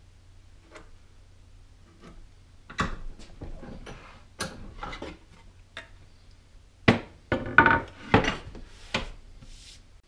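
Wooden boards and a cast-iron hand plane being picked up, moved and set down on a wooden workbench: irregular knocks and clatters, loudest in a cluster in the second half.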